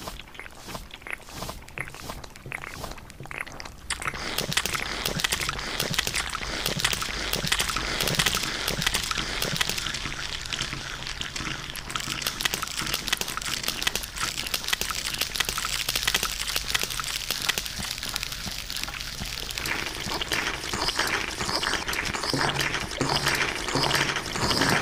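A dense, jumbled mass of many overlaid copies of the same eating sounds: wet squelching, crunching and scraping, all playing on top of one another. It grows louder and thicker about four seconds in, and near the end a low pitched sound repeats quickly through the mix.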